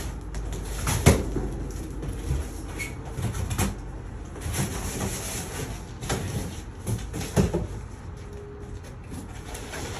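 Large cardboard shipping box being opened by hand: flaps and packing rustling and scraping, with several knocks, the sharpest about a second in.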